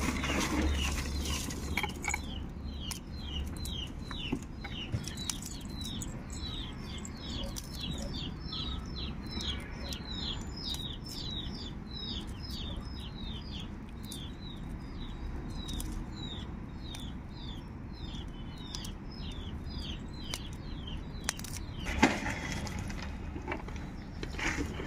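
Small birds chirping: a long, quick string of short, high, falling chirp notes that starts about two seconds in and stops a few seconds before the end. Faint scattered clicks and crackles run under it, fitting dry garlic skins being peeled by hand.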